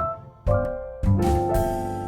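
Background music: a melody of held notes over a bass line, with drum hits about half a second and a second in.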